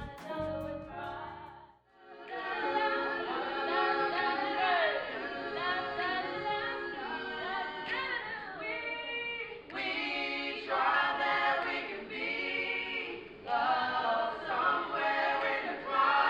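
A group of voices singing unaccompanied, a choir sound with several held and gliding sung notes, starting about two seconds in after a short stretch of other music fades out.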